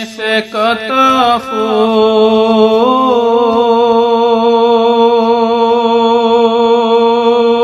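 A man singing a Bengali Islamic gojol: a few short syllables, then one long held note that wavers slightly.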